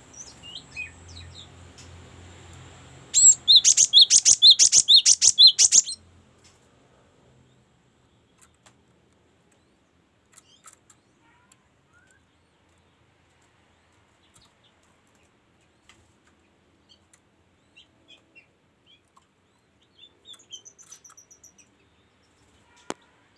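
Cinereous tit (gelatik batu) singing a loud, fast run of repeated high notes for about three seconds, starting about three seconds in, then only faint scattered chirps. A short high trill comes near the end, followed by a single sharp click.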